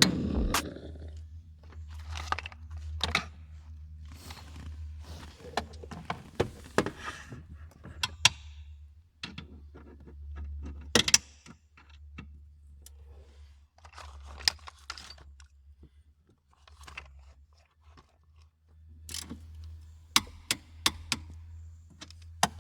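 Hand work on a car's parts and tools: scattered sharp clicks, knocks and short scrapes of metal and plastic at irregular intervals, over a steady low hum. A few louder clicks come near the middle and again near the end.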